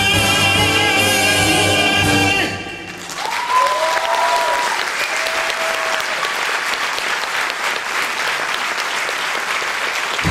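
A male singer holds the final note of a musical-theatre aria with vibrato over the orchestra, cutting off about two and a half seconds in. A theatre audience then applauds, with a few voices calling out early in the applause.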